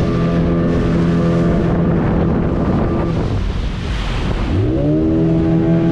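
Speedboat's outboard motor running at speed, with wind buffeting the microphone and water rushing past. About three seconds in the engine note drops away for about a second, then revs back up in a rising pitch and settles into a steady run.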